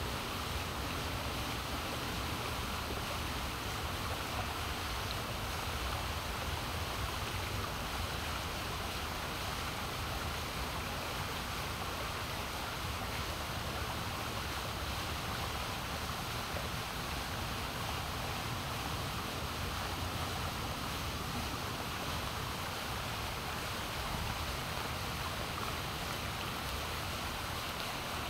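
Steady, even rush of water swirling down a whirlpool vortex into a circular drain outlet, with a low rumble underneath.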